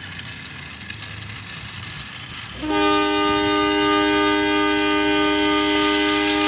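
A train horn starts suddenly about two and a half seconds in and holds as a loud, steady chord of several notes. It is a locomotive horn sound played for the wooden model trains' horn battle.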